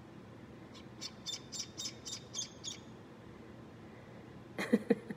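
Newly hatched duckling peeping: a quick run of about eight short, high-pitched peeps over about two seconds. A brief louder sound follows near the end.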